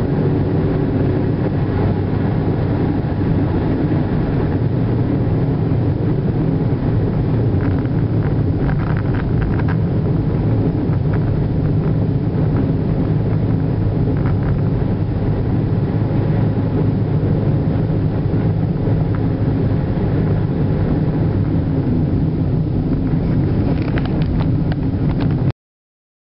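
A moving car's engine and road noise heard from inside the cabin, steady throughout, cutting off suddenly near the end.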